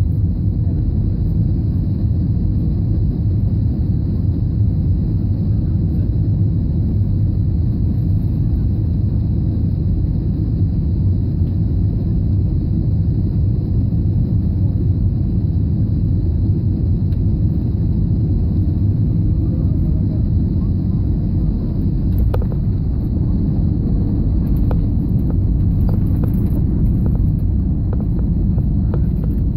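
Cabin noise inside an Airbus A320 on final approach and landing: a steady low rumble of engines and airflow, with a few faint knocks in the last third as the aircraft reaches the runway.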